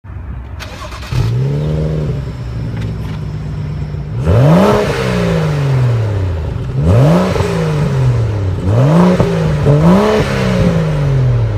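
2015 BMW M235i's 3.0-litre TwinPower Turbo inline-six, heard at the exhaust, starting about a second in with a brief flare and settling to idle. It is then revved four times, each rev rising quickly and falling back more slowly, the last two close together.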